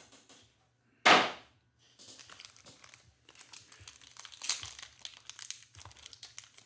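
Foil wrapper of a trading-card pack crinkling and tearing as it is handled and ripped open, in irregular crackly rustles. There is one short, loud noise about a second in.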